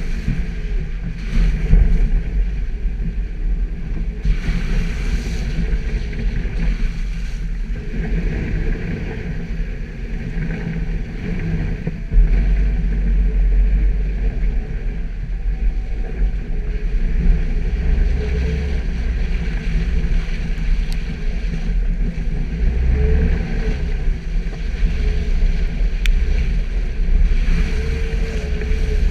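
Suzuki Jimny driving off-road, its engine and drivetrain giving a steady low rumble that gets a little louder about twelve seconds in.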